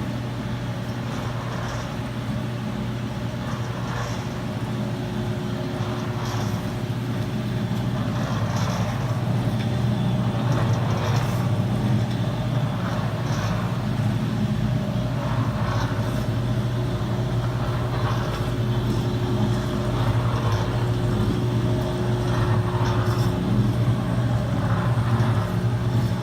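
Gemco 16-quart lab blender running: a steady electric motor and drive hum with a soft swish repeating every two seconds or so as the shell turns.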